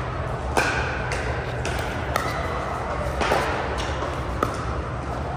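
Pickleball paddles striking a hard plastic ball in a rally: about six sharp pocks, some in quick half-second volleys and others about a second apart, over a steady low hum.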